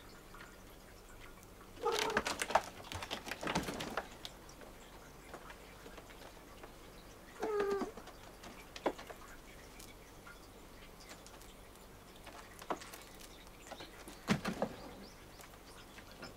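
Two short, wavering cat calls, one about two seconds in and another about seven and a half seconds in, amid scattered knocks and scratches of cats moving and climbing on furniture.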